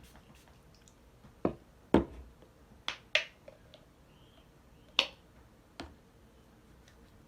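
About six sharp clicks and taps at irregular intervals: small hard objects being handled and set down.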